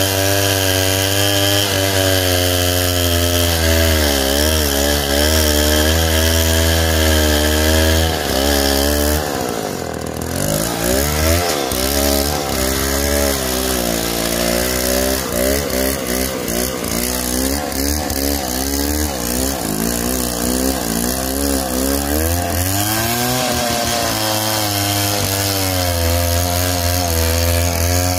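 Two-stroke chainsaw running under load while ripping a log lengthwise, its engine pitch wavering as the chain bites. About nine seconds in the revs drop sharply for a moment, then climb back up and keep cutting.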